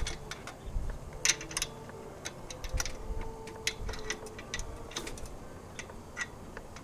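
Irregular light clicks and taps of a paramotor cage's lower tube section and quick-disconnect pin being fitted together by hand.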